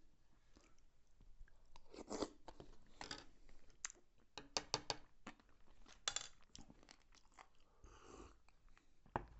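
Biting and chewing crisp food, heard close up: a run of irregular sharp crunches, loudest in a cluster about four and a half to five seconds in.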